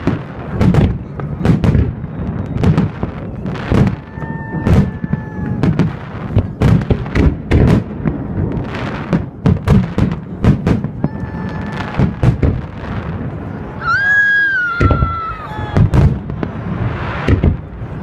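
Fireworks salute: aerial shells bursting in quick, irregular succession, with deep booms that echo away. A few brief high whistling tones sound among the bangs.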